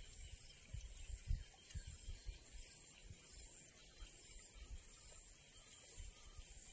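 Steady high-pitched chorus of insects, with occasional soft low rumbles.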